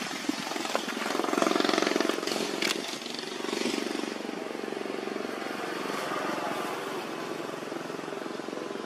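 A small motorcycle engine running steadily, loudest about one to two seconds in, with a few sharp clicks early on.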